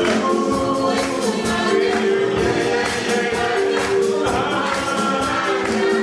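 Children's choir singing an upbeat song in many voices, with held notes, backed live by a drum kit and keyboard that keep a steady beat.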